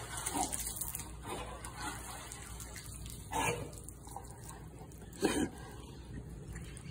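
Water splashing and dripping as a wet dog climbs out of a swimming pool and walks off with water running from its coat. Two brief louder bursts come in the second half.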